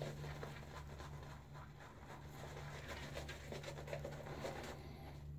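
Boar-bristle shaving brush rubbing a thin soap lather onto a bearded face: soft, irregular scratchy swishing strokes.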